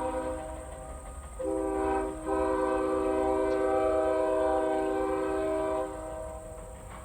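Nathan Airchime K5HL five-chime train horn with a sandcast two-piece 1L bell, sounding its steady chord. A blast dies away near the start, then comes a short blast, and after a brief break a long one held for about three and a half seconds.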